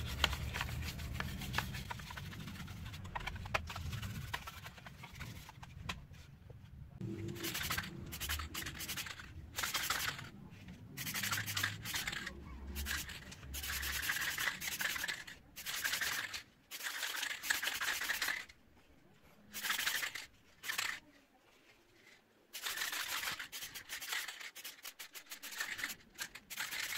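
Candle wax rubbed along a wooden slide in repeated scraping strokes, waxing the slingshot's sliding barrel so that it moves smoothly. The strokes run on with a few short pauses in the second half.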